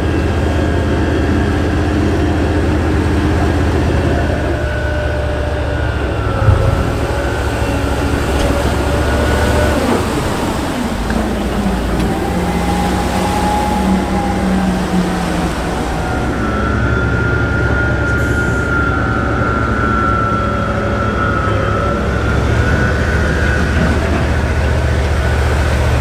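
Military amphibious bridging vehicle's engine running steadily under load with a high whine that shifts in pitch, over churning water, as it drives through the river and climbs out up the bank. A short thump comes about six seconds in.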